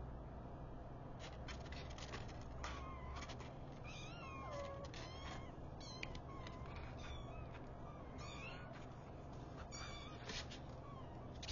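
Young kittens mewing: a string of short, high-pitched cries, some wavering in pitch, every second or two.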